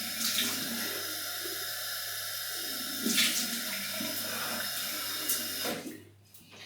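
Cold water tap running into a bathroom sink, with splashes as water is scooped onto the face for a post-shave rinse. The tap is shut off near the end.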